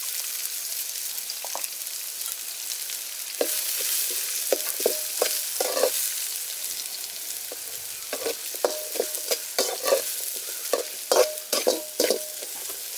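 Sliced onions sizzling in hot oil in an aluminium kadai. From a few seconds in, a ladle scrapes and knocks against the pan as they are stirred, each knock briefly ringing the metal.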